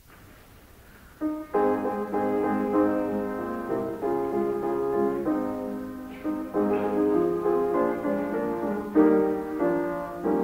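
Piano playing an introduction in block chords, each chord struck and then fading, starting about a second in after a moment of faint recording hiss.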